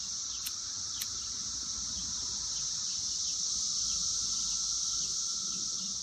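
Steady, high-pitched drone of a chorus of 17-year periodical cicadas. Two sharp clicks about half a second and a second in come from a lighter being struck to light a pipe.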